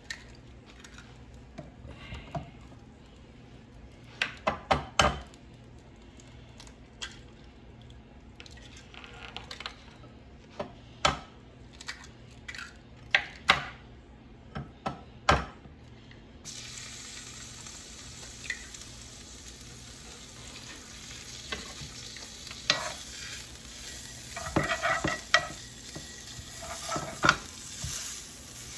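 Hot electric skillet with browned steak residue: scattered knocks and clicks at first, then from about halfway a steady sizzling hiss. Near the end there is clattering and sizzle as a piece of steak is laid in the pan.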